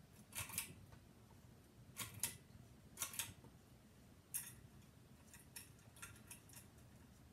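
52-inch Hampton Bay Landmark III Plus ceiling fan running quietly on low speed, with a faint hum and soft, irregular ticks about once a second.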